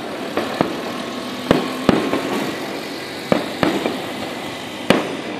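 Aerial fireworks shells bursting: a series of sharp bangs, about one a second, over a steady background noise.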